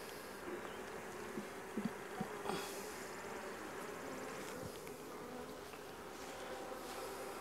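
Honey bees buzzing steadily around open hive boxes while frames of comb are moved, with a few light knocks of wooden frames and boxes about two seconds in.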